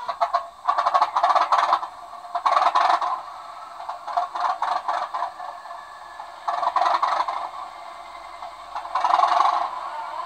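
Model train running on the layout's track: about five separate bursts of metallic scraping and rattling, each lasting under a second or so.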